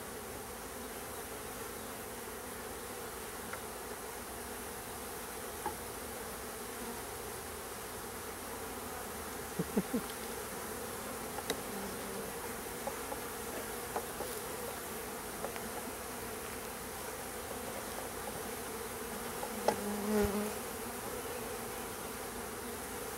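Honey bees buzzing steadily as a large mass around an open hive being installed from a package, with a few light knocks and clicks, the loudest about twenty seconds in.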